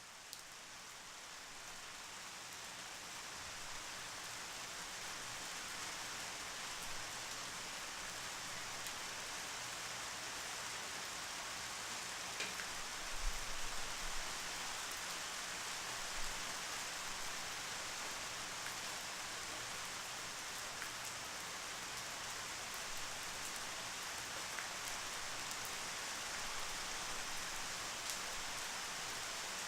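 Steady rain falling, a dense even hiss that swells up over the first few seconds and then holds level. Occasional sharper drops tick through it, and a low thump comes about 13 seconds in.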